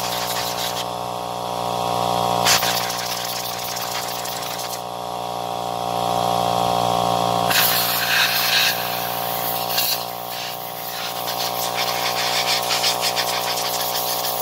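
Compressed air hissing from an air blow gun in bursts as it blasts dirt and sawdust off a chainsaw's powerhead. The hiss stops about a second in, comes back after about two and a half seconds, pauses again near five seconds and returns at about seven and a half seconds. A steady machine hum runs underneath throughout.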